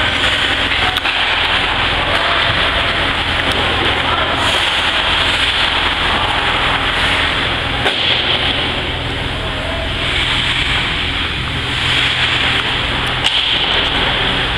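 Ice hockey game ambience in a rink: a steady rushing noise with a low hum underneath and faint voices now and then.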